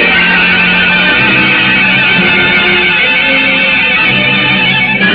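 Dramatic music bridge from a 1940s radio drama: held notes over a steady low note, shifting every second or so. It marks the act break before the announcer's sponsor line. The sound is the dull, narrow sound of an old broadcast recording.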